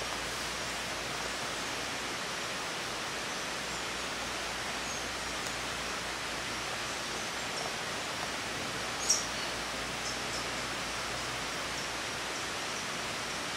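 Steady, even rushing hiss of outdoor ambience, with a few faint short high chirps and one louder short high chirp about nine seconds in.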